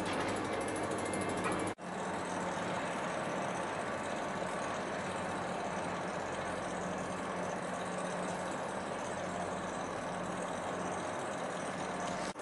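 Class 91 electric locomotive standing at the platform, its onboard equipment giving a steady, even hum. There is a momentary dropout about two seconds in.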